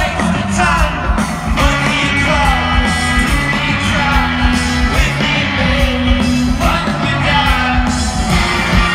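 Live rock band playing through a large outdoor PA, with a lead singer over electric guitar, bass and drums.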